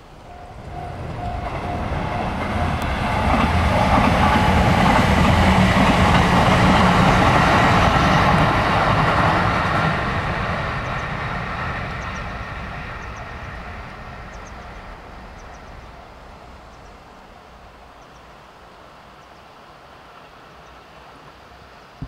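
Electric train passing along the line: its wheel and running noise builds over the first few seconds, peaks, then fades away over the following ten seconds or so.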